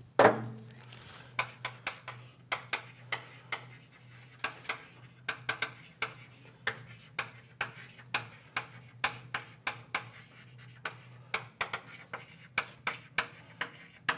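Writing by hand on a lecture board: a long run of short scratchy strokes and taps, about three a second, opening with a sharp knock, over a steady low hum.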